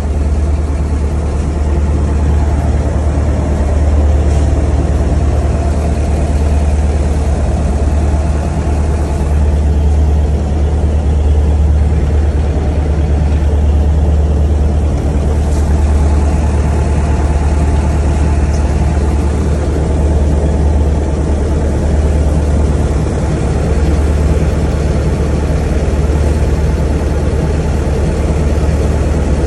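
An engine on board the fishing boat, running steadily with a constant low hum that does not rev up or down.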